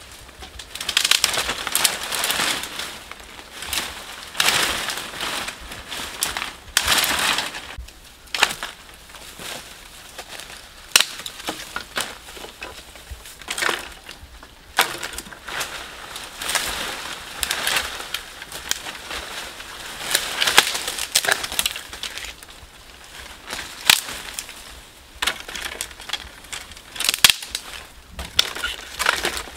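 Dry sticks, branches and dead leaves crunching and snapping as branches are broken and pulled out of the undergrowth. Irregular rustling crunches with sharp snaps now and then.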